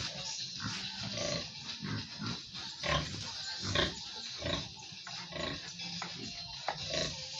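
Pigs and piglets grunting in short, irregular calls, the loudest about three and four seconds in; the pigs are hungry and expecting to be fed.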